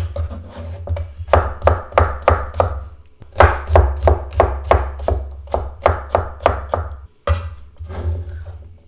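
Chef's knife dicing cucumber on a wooden cutting board: a fast, even run of chops, about three or four a second, broken by short pauses about three and seven seconds in.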